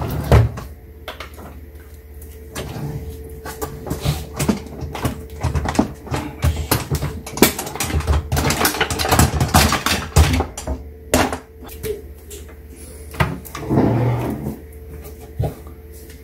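Knocks, taps and clatter from hands and a cordless drill being handled inside a wooden kitchen cabinet: a string of sharp knocks, densest toward the middle, with a short duller rumble near the end.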